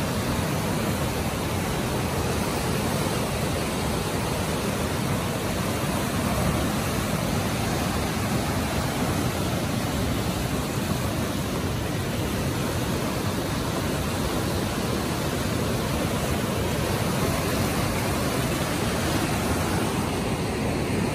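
Whitewater rapids of the Merced River rushing steadily, a dense even noise with no breaks.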